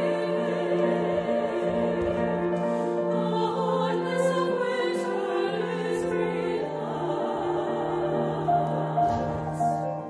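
Choir singing sustained chords over a held low note, which steps down to a lower pitch about two-thirds of the way through.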